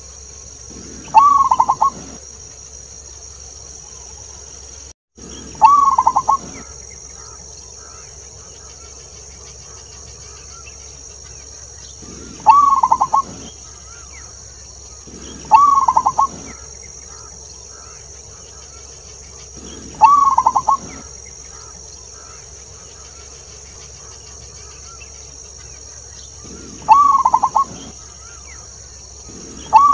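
Zebra dove (perkutut) cooing: a rapid run of falling notes about a second long, repeated six times at uneven gaps of three to seven seconds, over a faint steady high hiss.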